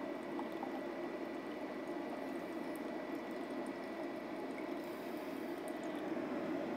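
The GX Pumps CS4 compressor's small water-cooling pump running, with coolant circulating and flowing back into the open water tank: a steady watery running sound.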